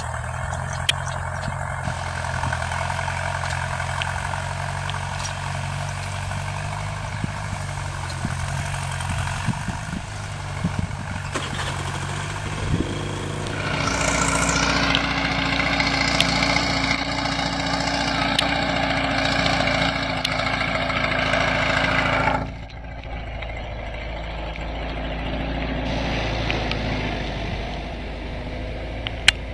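Ford 6610 farm tractor's diesel engine running steadily as it pulls a disc plough through the soil. The engine is louder and fuller for a stretch in the middle, then drops back to a steadier, more distant sound.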